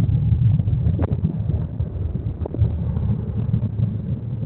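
Boeing 727 freighter's three JT8D turbofan engines at takeoff power: a loud, rough low rumble that slowly fades as the jet departs.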